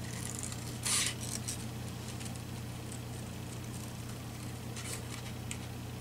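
Collage paper being handled: a short rustle about a second in, then fainter rustles and light ticks, over a steady low hum.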